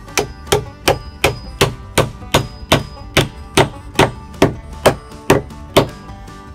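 Tapered beech wood pieces being knocked into a gap in a wooden axe-throwing target: about fifteen sharp, evenly paced blows, two to three a second, over background music.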